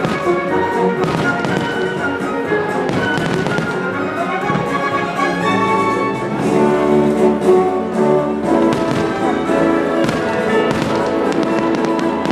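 Orchestral music from a fireworks show's soundtrack, with fireworks bursting and crackling over it in quick runs of bangs.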